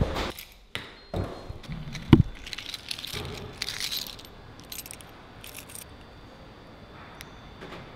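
Keys jangling and handling noises, with several knocks and a sharp knock about two seconds in, then settling to a quiet steady hiss.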